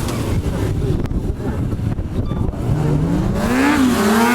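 Stunt motorcycle engine: a low rumble for about three seconds, then revving, the note climbing and rising and falling several times.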